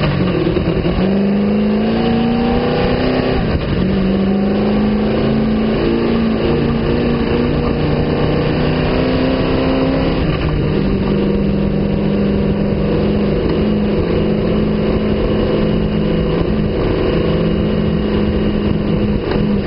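Sand car's engine running hard under way, climbing in pitch and then dropping sharply at gear changes about three and a half and ten seconds in, then holding a steady pitch.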